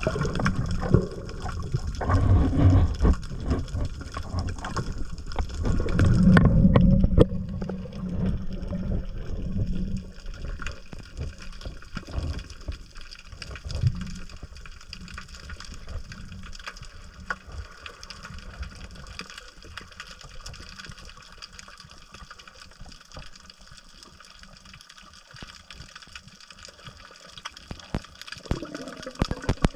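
Seawater sloshing and splashing, louder in the first ten seconds, then settling into quieter lapping with scattered small clicks.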